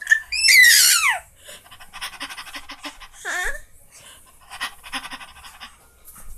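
A baby's excited high squeal that slides down in pitch. It is followed by quick, raspy panting breaths, with a short falling coo between them about three seconds in.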